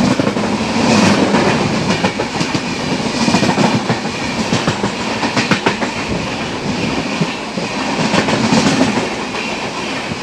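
Passenger coaches of an express train running past close by on the adjacent track, a loud rush of wheel and coach noise with wheels clattering over the rail joints in quick, irregular clicks.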